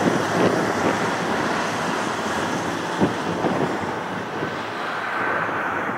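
Boeing 737 airliner on final approach with its gear down, its jet engines a steady rushing noise, with gusts of wind buffeting the microphone. A faint high whine comes in near the end.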